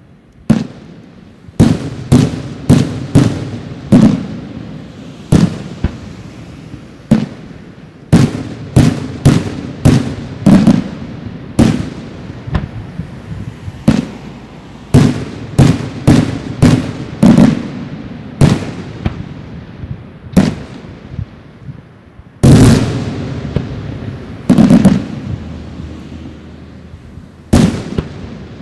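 Bruscella aerial firework shells bursting one after another in an irregular string of sharp bangs, each with a short echoing tail. About three-quarters of the way through comes a denser, louder salvo.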